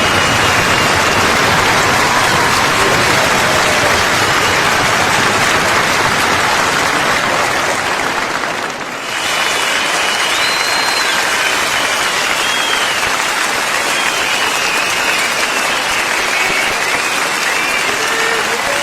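Crowd applauding, with several people whistling over the clapping in short rising and falling whistles. The sound dips briefly about nine seconds in, then the clapping and whistling go on.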